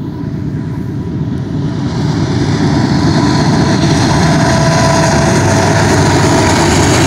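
Union Pacific diesel freight locomotives, a GE C44ACCTE leading two EMD SD70Ms, approaching and passing under power. The deep engine rumble grows louder over the first few seconds, then holds steady with a steady whine above it as the units go by.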